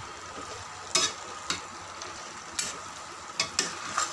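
Steel spatula stirring a pan of potato and fenugreek-leaf (methi) vegetable, scraping against the pan in about six sharp strokes over a steady sizzle.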